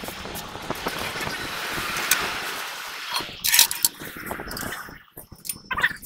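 A rushing noise swells and fades over the first three seconds, then light metallic clinks as a bolt is fitted by hand into a hole in a truck's rear axle housing.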